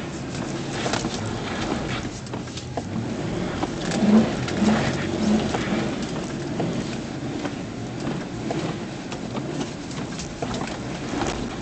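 1996 Ford Bronco's 5.8-litre (351 Windsor) V8 running while the full-size truck turns circles on snow, with steady tyre and road noise. It gets louder in a few short pulses about four to five seconds in.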